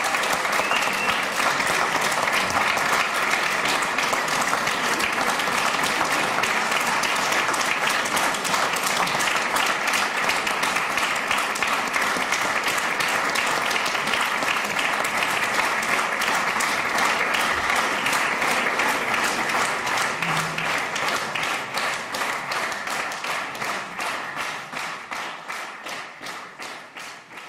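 Audience applauding, the dense applause settling into rhythmic clapping in unison in the second half and fading out near the end.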